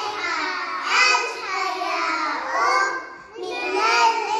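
A group of young children singing together in unison, with a short break for breath about three seconds in.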